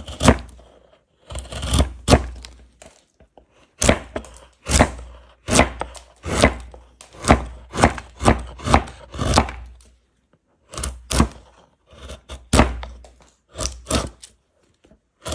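Wood being struck over and over with a hand tool: sharp chopping knocks in irregular runs of a few strikes, about two to three a second, with short pauses between the runs.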